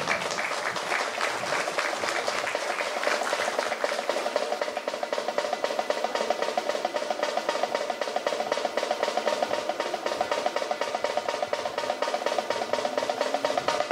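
Snare drums playing a rapid, steady roll that cuts off abruptly at the end.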